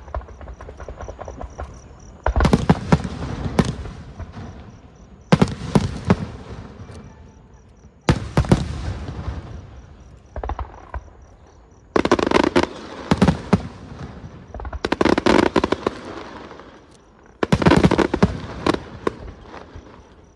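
Fireworks show: aerial fireworks going off in a loud burst every two to three seconds. Each burst is a cluster of sharp bangs and crackles that fades over a second or two before the next one.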